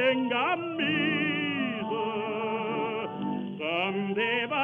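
Background music: an operatic singing voice with strong vibrato, over held accompanying notes.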